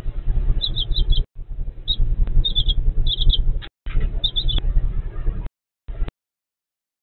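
Baby chicks peeping in quick clusters of short high chirps, heard through a security camera's microphone over a steady low hum. The sound drops out in short gaps and cuts off entirely about six seconds in.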